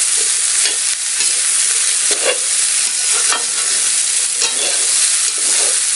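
Diced potatoes and cut yardlong beans (barbati) sizzling in hot oil in a metal kadhai, with a flat metal spatula scraping and turning them in irregular strokes every half second to a second.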